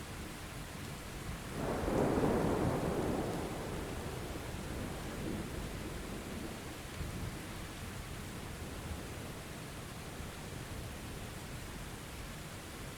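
Thunderstorm: steady rain with a roll of thunder that swells about a second and a half in and rumbles away over the next few seconds.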